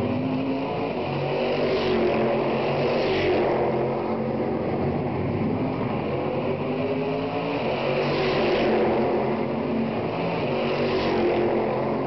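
Stock car racing engines running at speed around the circuit: a steady, layered drone of several engines at varying revs, swelling louder a few times.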